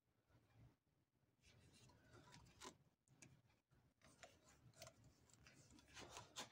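Faint small metallic clicks and light scraping of hands working on an old Adler shoemaker's sewing machine as its thread tension regulator is tightened; a scatter of short ticks, one sharper click in the middle.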